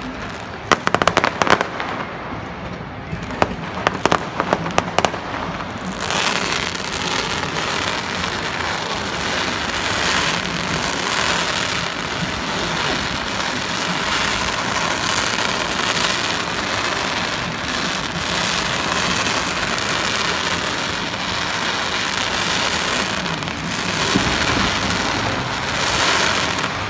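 Aerial fireworks display: a rapid series of sharp bangs for the first six seconds, then a dense, continuous wash of bursts and crackle that swells slightly near the end.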